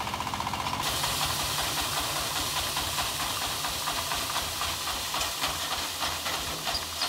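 Wood crusher machine running: a low, even engine rumble under a steady hiss that grows stronger about a second in.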